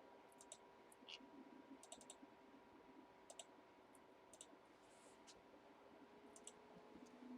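Near silence broken by faint, scattered sharp clicks, about a dozen at uneven intervals.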